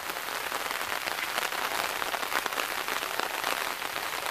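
Steady rain falling, a dense patter of many fine drop ticks.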